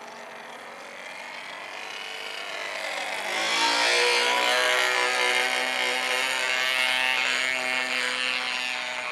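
Radio-controlled model airplane's engine passing close overhead: it gets steadily louder, its pitch drops as it goes by about three and a half seconds in, then it runs on, fading slightly as the plane pulls away.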